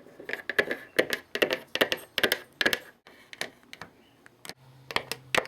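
Small plastic toy figures clicking and tapping against a hard surface as they are moved along, about two or three taps a second, thinning out to a few scattered clicks. A low steady hum comes in near the end.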